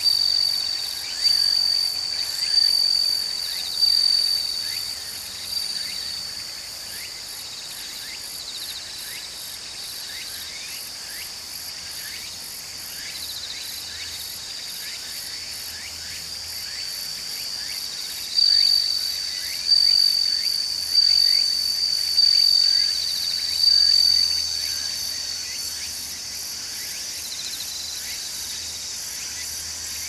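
A chorus of autumn insects singing: a steady, high trill over a continuous pulsing chorus, growing louder in two spells, over the first few seconds and again about two-thirds of the way through.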